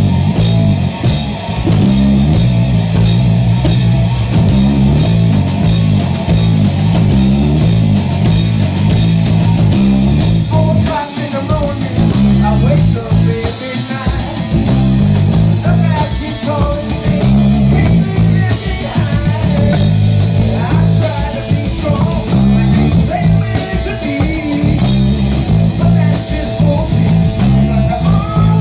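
Afro-rock band playing live and loud: a driving electric bass line, electric guitar and drum kit, with a male singer's voice coming in from about ten seconds in.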